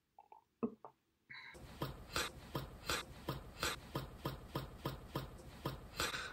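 Faint, steady rhythmic tapping, about three taps a second, starting a little over a second in after a few soft clicks.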